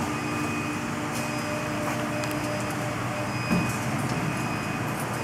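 A CNC wood lathe running with a steady machine hum, with high whine tones that switch on and off every second or so. There is a short knock about three and a half seconds in.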